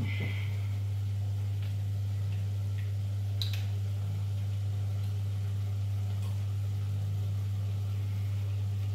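Steady low electrical hum, with a couple of faint clicks from ingredients being handled over the pan, one just after the start and one about three and a half seconds in.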